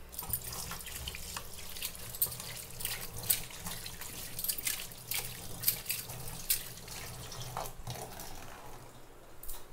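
Ragi-flour and spinach pakodas deep-frying in hot oil in a kadai: a steady sizzle with many sharp crackles and pops.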